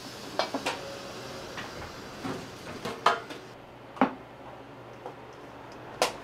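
Spatula knocking and scraping against a stainless steel mixing bowl while soufflé pancake batter is spooned onto a griddle: several sharp clinks at irregular intervals over a steady low hiss.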